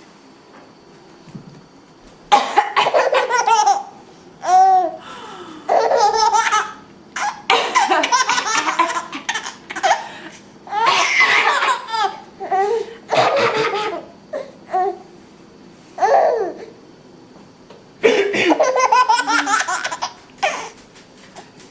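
A young child laughing in repeated bursts, starting about two seconds in, amused by a woman coughing, whose coughs come in among the laughs.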